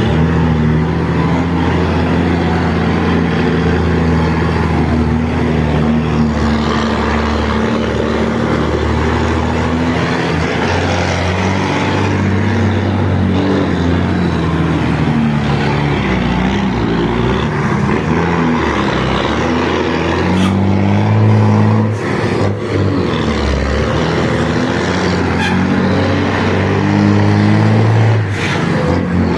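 Mercedes-Benz 1620 truck's diesel engine on a straight-through, unmuffled exhaust, running loud and rising and falling in pitch as it is driven and revved. A few short sharp sounds cut in during the second half.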